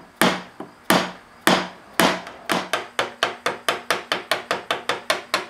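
A wood chisel struck with a hammer, cutting the burnt teak out of a knife handle: four hard blows about half a second apart, then a quicker run of lighter taps, about four a second.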